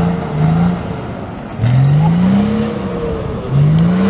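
Off-road 4x4's engine revving hard in repeated throttle bursts. The pitch climbs steeply about a second and a half in and again near the end, holding high between.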